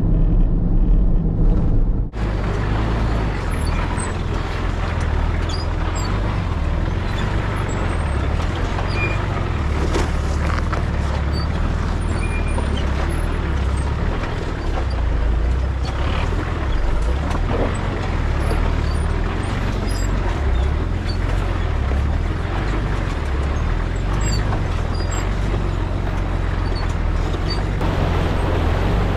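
A vehicle driving on a rough unsealed road: a steady low rumble of engine and tyres with scattered small rattles and knocks.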